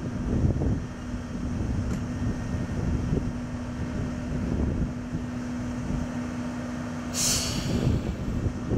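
A vehicle engine running with a steady hum over a low rumble, and a short burst of air hiss about seven seconds in.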